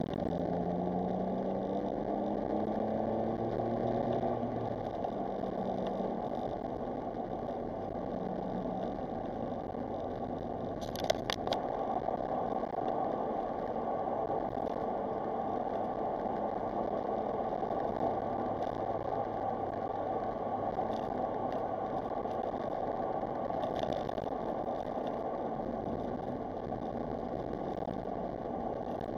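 Smart Roadster Brabus's small turbocharged three-cylinder engine running on the move, with steady road noise; the engine note rises as it accelerates over the first few seconds. A brief cluster of sharp clicks comes about eleven seconds in.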